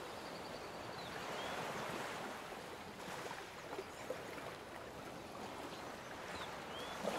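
Soft rushing water that swells and eases, with faint short high chirps about a second in and again near the end.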